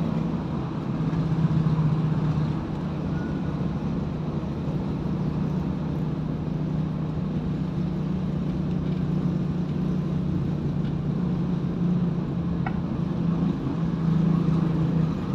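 Car engine and tyre noise heard inside the cabin while driving at a steady speed: a continuous low hum that swells a little about a second and a half in and again near the end.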